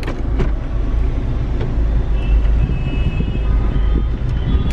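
Low, steady wind rumble on the microphone and road noise from a Mahindra XUV500 driving in traffic with its sunroof open, with a few light knocks.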